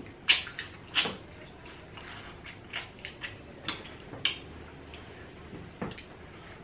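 Close-miked eating sounds: bites into corn on the cob and chewing of seafood, heard as irregular sharp wet smacks and clicks, the two loudest in the first second.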